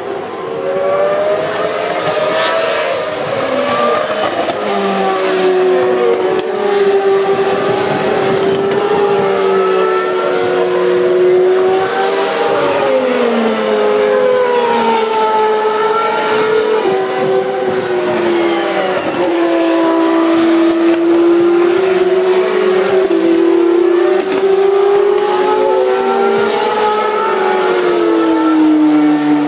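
Several GP2 single-seater race cars with 4-litre Mecachrome V8 engines running at high revs through a corner. Their engine notes overlap, gliding down and back up over and over as the cars slow and accelerate.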